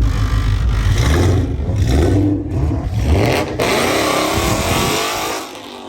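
Loud car engine revving hard. At about three and a half seconds the note changes to a higher, smoother sound, which fades near the end.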